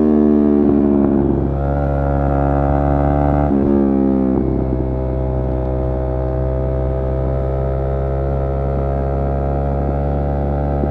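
Yamaha R3's parallel-twin engine running. Its note falls in two or three steps over the first few seconds, then holds steady.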